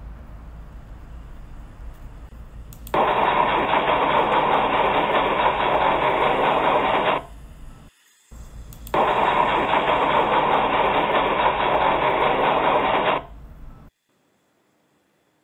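Soundtrack noise: two loud stretches of even, hiss-like noise, each about four seconds long, with a short break between them. Under them runs a low hum, and it all cuts off suddenly near the end.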